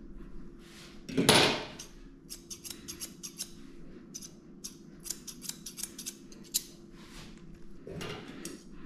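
Grooming shears snipping a dog's hair around its head in a quick run of short, crisp snips. A single louder, brief noise comes about a second in, and a faint steady low hum runs underneath.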